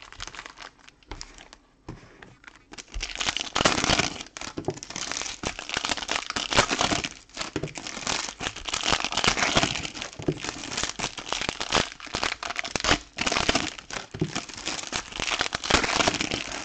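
Foil trading-card pack wrappers crinkling and being torn open by hand as packs of 2020 Select soccer cards are opened, quieter at first and a dense, continuous crinkling from about three seconds in.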